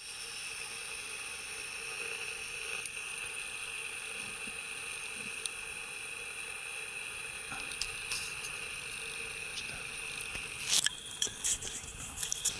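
Steady high-pitched insect drone of several unbroken tones, with a quick run of sharp clicks and knocks near the end.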